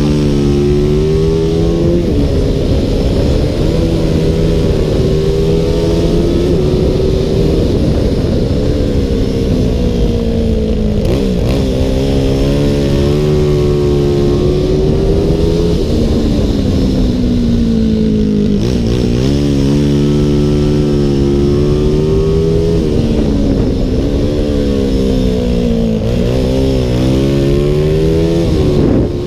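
CG 300 racing motorcycle engine at full throttle, heard from on the bike: the pitch climbs through each gear and drops at every upshift, and falls sharply twice when the rider brakes and downshifts for corners, with a run of quick rev rises and falls near the end. A steady rush of wind noise runs underneath.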